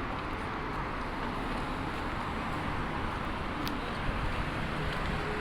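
Steady road-traffic noise from cars in slow, jammed city traffic: a constant low rumble of engines and tyres.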